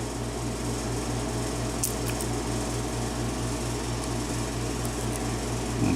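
A steady mechanical hum with a fast, even pulsing, joined by a few faint light clicks about two seconds in.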